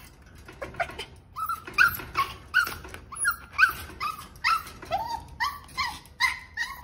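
A puppy whining and yipping in a quick string of short, high cries, several a second, starting about a second in.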